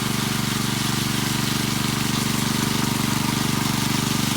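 Power trowel (concrete "helicopter") engine running steadily at a constant speed while the slab is floated.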